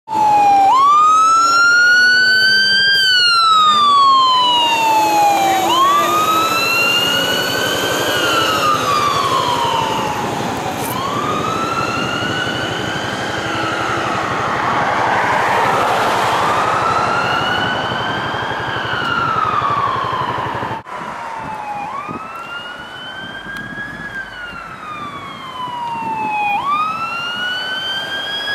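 Emergency vehicle siren on the wail setting: a loud tone that rises quickly and falls more slowly, repeating about every five seconds. Traffic noise from a passing heavy vehicle swells under it around the middle.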